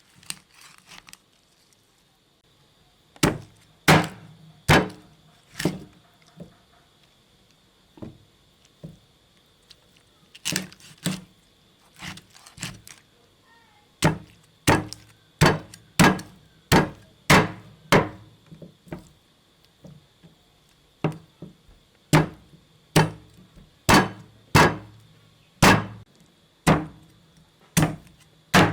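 A heavy knife chopping on a wooden board: runs of single hard strokes a little under one a second, with short pauses between runs.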